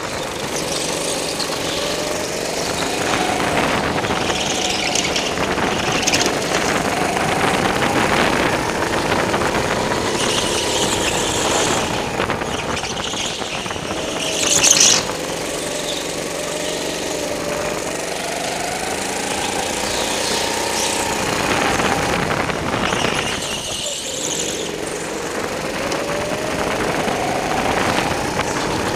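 Go-kart heard from on board, its motor rising and falling in pitch as it speeds up and slows through the corners, with tyres squealing in the turns. A brief, louder burst about halfway through.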